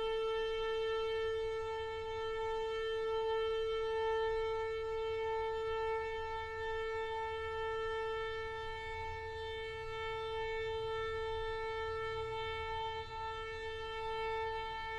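Bowed strings holding one long, unwavering note, bright with overtones, over a faint low rumble.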